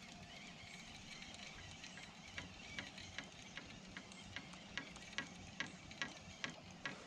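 Fishing reel being cranked on a retrieve, giving a sharp tick about two to three times a second. The ticking starts about two seconds in and grows louder.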